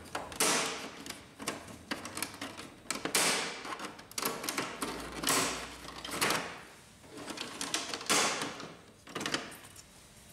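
Thin plastic control-panel cover of a Canon MP270 inkjet printer being pried off its hooks with a flat screwdriver: a run of small plastic clicks and taps, with several short scraping rubs as the cover is worked free.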